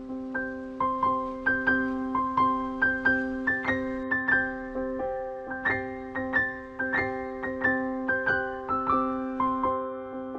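Background music: a gentle piano melody of single notes struck about once or twice a second over held lower notes.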